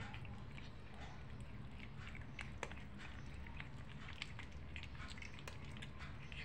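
Two kittens chewing and lapping at food on a tile floor: many small, irregular wet clicks and smacks, over a steady low hum.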